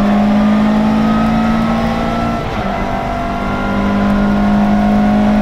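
Rally car engine at full throttle heard from inside the cockpit, its revs climbing slowly, with a brief dip about two and a half seconds in as it shifts up a gear before climbing again.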